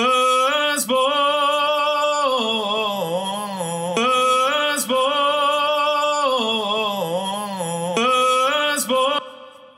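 A man singing a slow phrase of long held notes, played back from a recorded vocal track through compression, a simple delay and reverb. After the voice stops near the end, an echo and reverb tail fades out.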